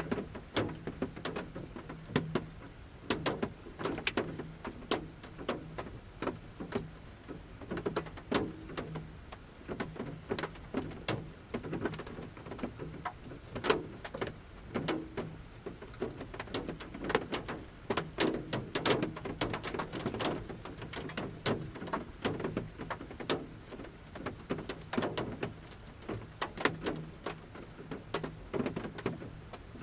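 Large raindrops falling from a forest canopy and pattering at irregular intervals on the roof of a camper van, heard from inside the van, with a faint steady low hum underneath.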